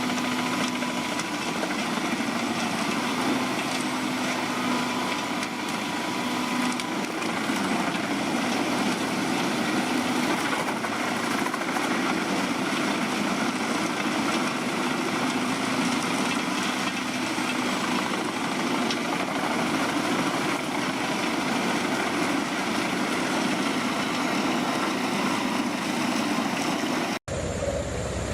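Large crane-fed wood chipper running steadily as it shreds thick branches: a dense, unbroken mechanical din. Near the end the sound cuts off for an instant and a different machine sound follows.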